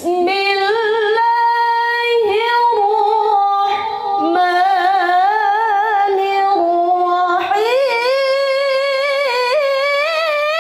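A young female Qur'an reciter (qoriah) chanting in melodic tilawah style, drawing out long ornamented notes with vibrato. About seven and a half seconds in, her voice glides up to a higher held note.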